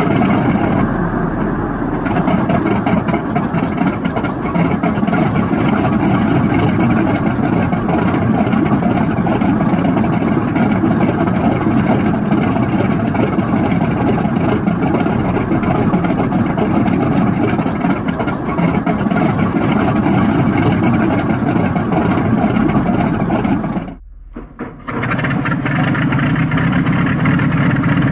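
Aircraft engine running loudly and roughly after startup. Near the end the sound drops away for about a second, then a different engine comes in with a steadier, deeper running sound.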